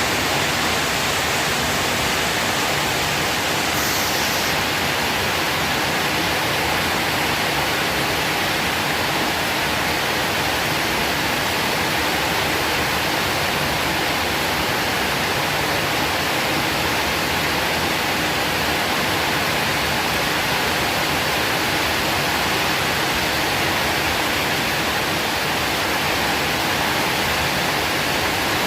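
Heavy rain pouring down steadily: an even, unbroken rushing hiss.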